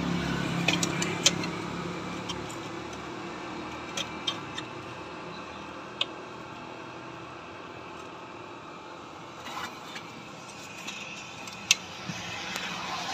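Scattered sharp metallic clicks and taps from pliers and brake parts being handled while a seal is worked into a brake housing, with a louder click near the end. A steady low rumble runs underneath.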